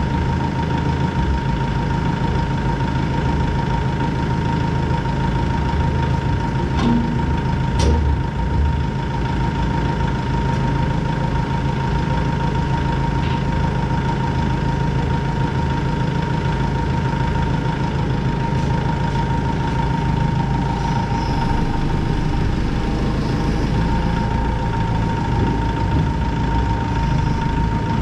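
Kubota L6060 tractor's four-cylinder diesel engine idling steadily, with a constant thin high whine over it and a couple of light clicks about seven seconds in.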